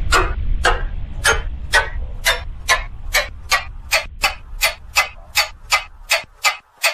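Ticking sound effect in an electronic dance track, a run of sharp clock-like ticks that speed up from about one and a half to about three a second, over a low bass rumble that fades out near the end.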